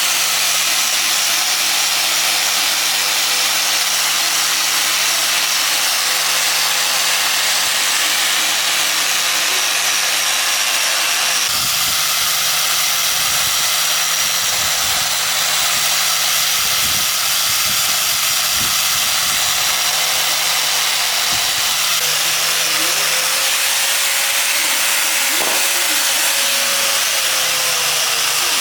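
A handheld power tool runs steadily and loudly, with a constant hiss and a steady motor hum. There are a few dull knocks in the middle.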